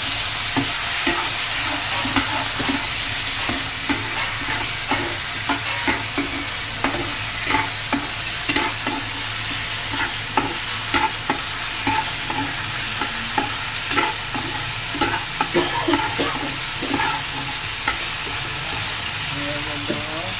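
Chicken 65 in a thin sauce sizzling and steaming in a hot non-stick frying pan, water just added. A metal slotted spatula stirs it, scraping and tapping against the pan in irregular clicks.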